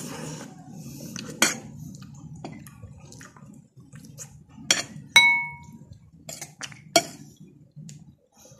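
Metal spoon clinking against a plate several times while a person eats. The strike about five seconds in rings briefly. Softer mouth and handling noises continue between the clinks.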